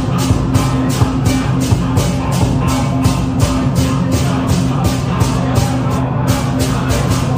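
Background music, a rock-style track with guitar and a steady beat of about four strokes a second.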